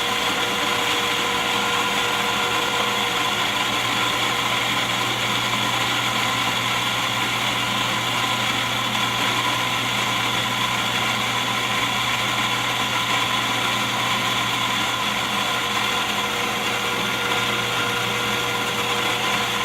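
Electric coffee grinder motor running steadily, a constant hum and whine that holds one pitch throughout.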